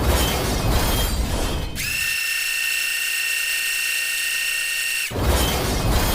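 Sound effects of an animated railroad crossing gate: a steady high-pitched motor whine that slides up as it starts and cuts off, broken twice by harsh rattling mechanical bursts about two seconds long.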